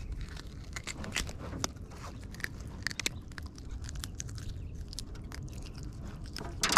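Irregular small clicks, crunches and scrapes of a freshly caught perch being handled, with a louder knock near the end.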